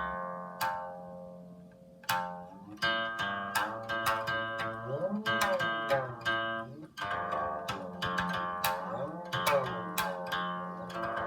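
Solo Chinese zither plucked note by note, the strings ringing on, with sliding pitch bends on held notes about halfway through and again near the end. The notes die away in a short lull a second or two in before the playing picks up again.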